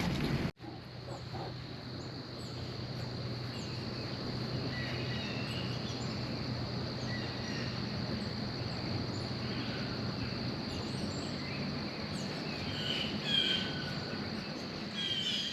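Birds chirping over a steady high insect drone, typical of crickets, after a brief cut-out about half a second in. The chirps grow busier near the end.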